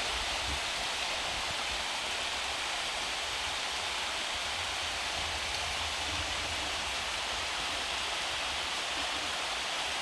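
Steady rushing of a shallow mountain stream flowing over stones and gravel, even throughout.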